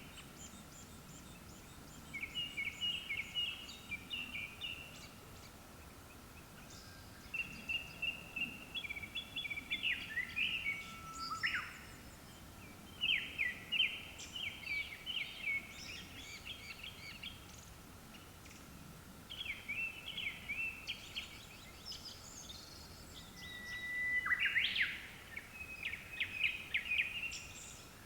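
Japanese thrush singing: bursts of quick, varied whistled phrases, each a few seconds long, with short pauses between, over a faint steady high tone.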